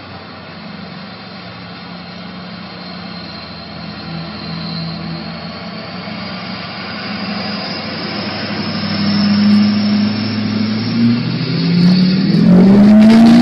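Diesel truck engine running steadily and growing louder as it approaches. Near the end it revs up, the pitch rising, over a loud rush of noise.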